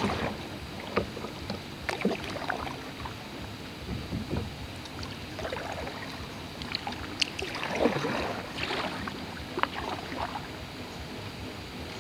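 Kayak paddle strokes in calm river water: the blades dip in and splash every second or two, with water dripping off them between strokes.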